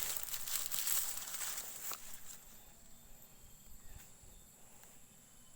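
Rice-field countryside ambience: a steady high insect drone, with rustling and small crackles in the first two seconds, fading away toward the end.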